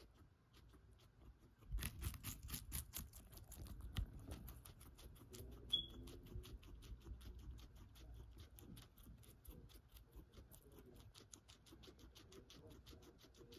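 A guinea pig chewing a celery stalk: a steady run of quick, crisp crunches, louder for a couple of seconds early on.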